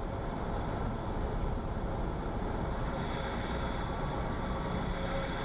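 Cessna's single piston engine running at idle with steady airflow noise in the cockpit as the plane flares and lands with the power off. It is heard through the aircraft's headset intercom.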